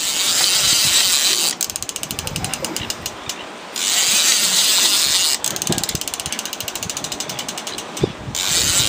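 Overhead lever-drag fishing reel ratcheting under load while a hooked Spanish mackerel is fought. Stretches of fast, continuous buzzing alternate with stretches of rapid, evenly spaced clicks, and there is a sharp knock about eight seconds in.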